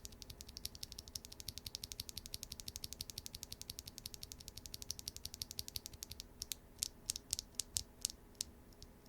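Toro Studio x BSUN Strawberry Cheesecake R2 tactile mechanical keyboard switches, with POK housings and LY stems, being pressed quickly in a steady run of about ten clicks a second. Around six seconds in the presses slow to single, separate clicks. The switches have a deep sound.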